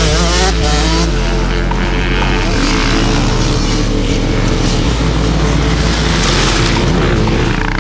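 Off-road motocross motorcycle engines running under background music with sustained low notes that change a couple of times.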